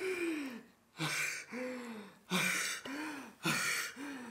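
A person's breathy, voiced gasps, four of them about a second apart, each rising and then falling in pitch.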